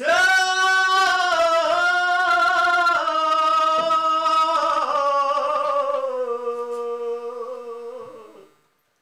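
A man singing unaccompanied in long, drawn-out notes that sink slowly in pitch, then fade out about eight and a half seconds in.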